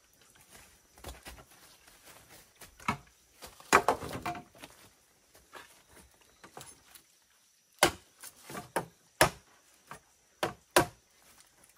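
Irregular sharp knocks and taps: a quick cluster about four seconds in, then a run of louder single knocks spaced roughly half a second to a second apart in the second half.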